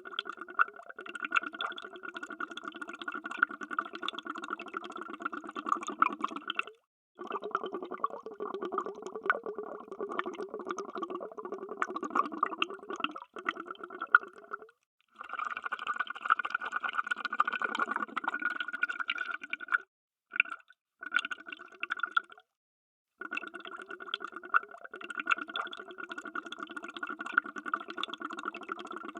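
Underwater bubbles sound effect: a dense, steady stream of bubbling, broken several times by short, sudden silences.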